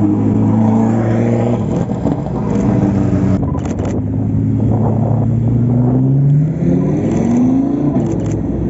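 Supercar engine running loud at a steady pitch, then accelerating with the engine note rising steadily over the last few seconds. A few brief sharp crackles come just before the rise.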